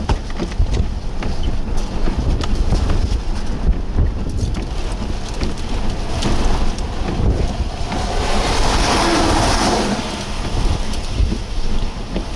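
Strong storm wind buffeting the microphone: a loud, steady low rumble with crackling gusts, swelling into a louder rushing hiss for a few seconds past the middle.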